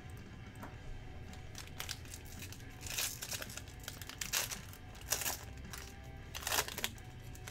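Foil wrapper of a trading-card pack crinkling and tearing as it is pulled open by hand, in several short bursts, the loudest in the second half. Background music plays underneath.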